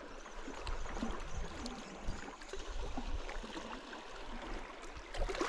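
Sea water lapping against shoreline rocks, with a steady low wind rumble on the microphone.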